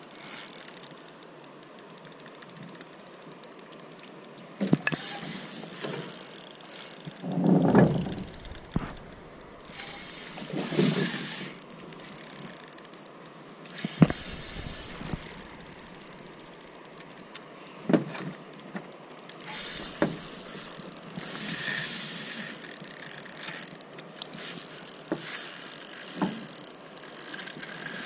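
A fishing reel ticking rapidly, its ratchet clicking as line is wound or drawn, with a few louder bursts of noise.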